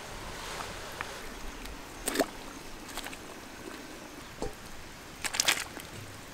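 Goat tripe and intestines splashing as they are dunked in a large pot of boiling water to scald them for cleaning, over the steady hiss and bubbling of the boiling water. Two louder splashes stand out, one about two seconds in and a longer one near the end.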